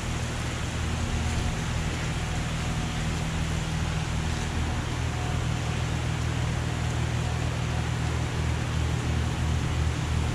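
Steady rain coming down hard, an even hiss with no breaks, over a steady low hum.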